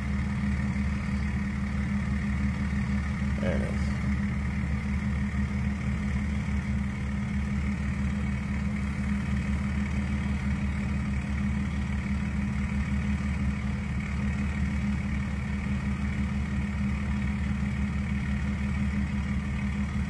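Truck engine idling steadily, heard close to its exhaust.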